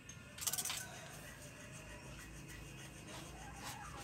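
Faint handling sounds of a plastic oil bottle at a small diesel engine's oil filler: a quick run of small clicks about half a second in, then low, faint rubbing and scraping.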